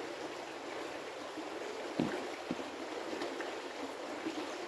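Creek water flowing and rushing steadily, with a couple of light knocks about two seconds in.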